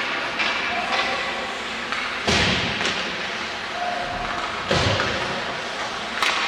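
Ice hockey play on a rink: sharp clacks of sticks and puck, with two loud thumps, one about two seconds in and one near five seconds.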